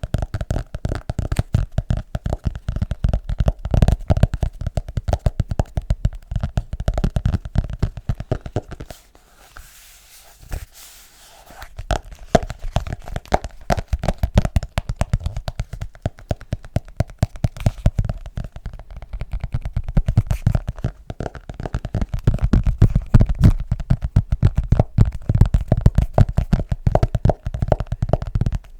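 Fast, continuous finger tapping on an object, many taps a second, each tap with a deep thump. The tapping stops for about two seconds around the ten-second mark, leaving only a faint hiss, then resumes.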